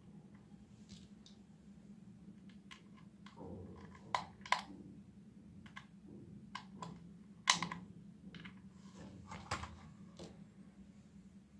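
Irregular light plastic clicks and taps from handling a toy walkie-talkie's case and battery cover, a few of them sharper and louder.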